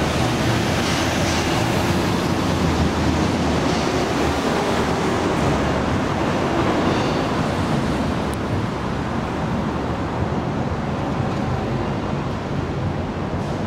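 Steady road and traffic noise from a vehicle driving: an even hiss over a low rumble.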